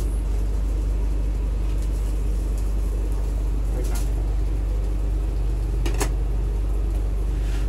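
Steady low mechanical hum of food-truck kitchen machinery, with two light clicks about four and six seconds in as food is plated into a plastic container.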